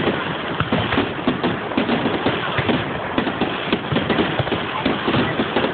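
Fireworks going off in a dense barrage, many bangs and crackles a second with no let-up.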